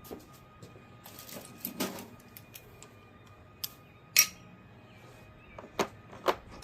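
Scattered metallic clicks and clinks of hand tools and bolts against the transmission's metal parts, about half a dozen separate strikes, the loudest about four seconds in with a brief ring.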